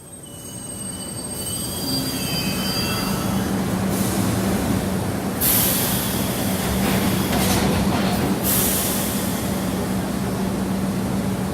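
Subway train running, swelling in over the first two seconds, with high wheel squeals in the first few seconds and a steady low hum throughout. Two bursts of hiss come about halfway through.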